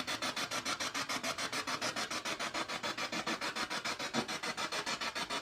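Spirit box (radio-sweep ghost box) scanning through stations: continuous hissy static chopped into rapid even pulses, about nine a second, which the investigator listens to for spoken answers.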